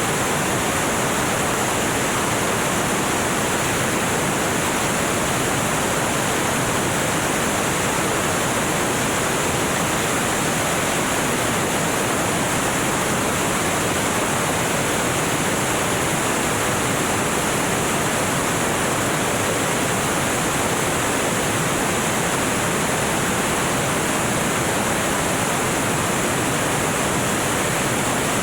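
Steady, even rushing noise of a small aircraft in flight: wind and engine noise blended into a constant roar-like hiss, with no changes.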